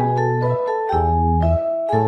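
Background music: a bright, mallet-toned melody over a bass line that changes note about once a second.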